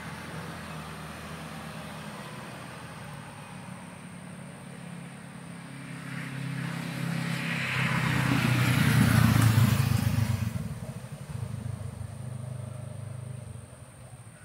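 A motor vehicle passing by. It grows louder to a peak about nine seconds in, then fades quickly, over a steady low engine hum.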